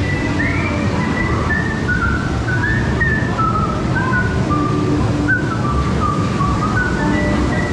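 A whistled tune of short stepping notes, part of the mine ride's recorded show audio, over a steady low rumble.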